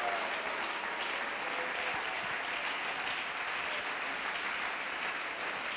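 A church congregation applauding, a steady unbroken clapping.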